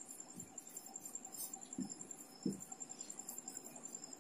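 Faint, high, rapidly pulsing chirr of an insect, with a few soft strokes of a marker on a whiteboard.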